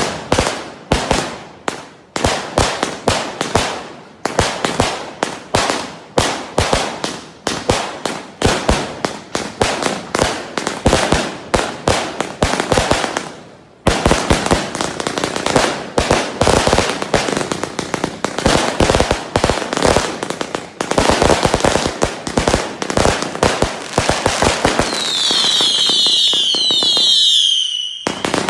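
A 216-shot firework cake firing shot after shot in quick salvos: launch pops and aerial bursts with crackle. There is a brief break about 14 seconds in, and a cluster of falling whistles near the end.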